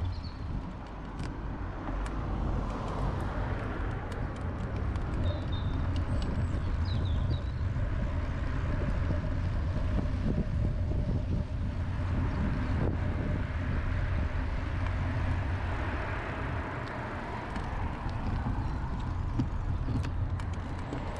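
Steady outdoor road and traffic noise: a continuous rumble and hiss that swells and fades again in the second half, with a few short high chirps in the first several seconds.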